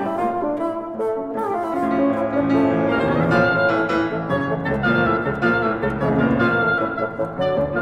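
Oboe, bassoon and piano playing together in a contemporary classical chamber piece; the music grows fuller and louder about two seconds in.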